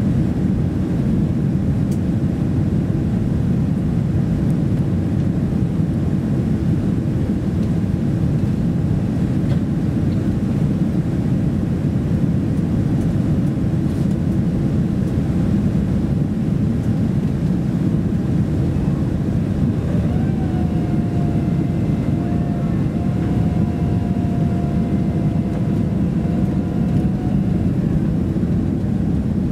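Cabin noise inside a Boeing 767-300 descending on approach with its flaps extended: a steady rush of airflow and engine noise, strongest in the low end. For several seconds in the latter part a faint, thin whine rides on top of it.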